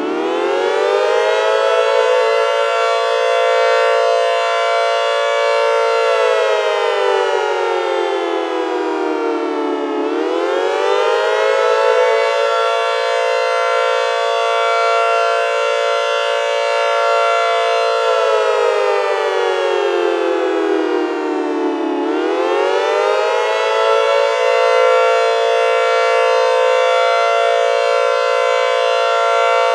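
Four-tone (quadtone) warning siren sounding a loud chord of several tones: it holds a steady pitch for about six seconds, falls slowly for about four, then winds quickly back up, and this rise-hold-fall cycle repeats twice.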